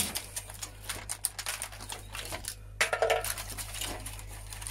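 Irregular plastic clicks and small rattles as hands work parts loose from the inside of a CD cassette player's plastic housing, with a louder clatter about three seconds in.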